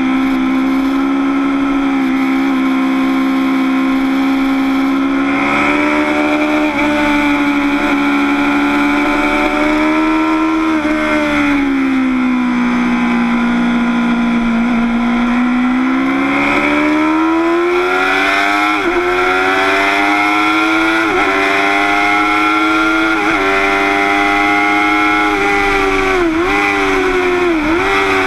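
Motorcycle engine heard from on board at speed, holding steady revs through a long corner. It drops in pitch about halfway, then climbs again as it pulls out, with several brief sharp dips in pitch in the last seconds.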